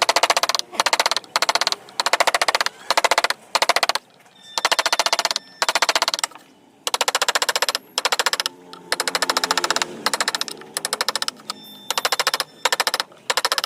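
Wood-carving chisel driven into wood with rapid strikes, coming in quick runs of fast, evenly spaced taps that are broken by short pauses.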